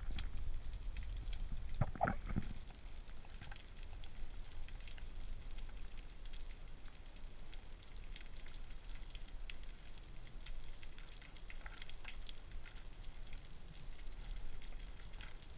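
Underwater ambience picked up by a speargun-mounted camera: a low rumble of water with scattered faint crackling clicks, and one short, louder burst of sound about two seconds in.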